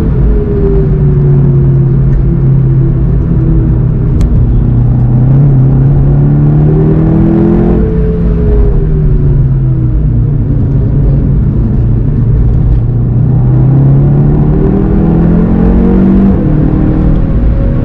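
Golf 7 GTI TCR's turbocharged 2.0-litre four-cylinder, heard from inside the cabin. The revs fall off, build under acceleration, ease, and build again, then drop sharply at an upshift about three-quarters of the way in, over steady tyre and road noise on the wet track.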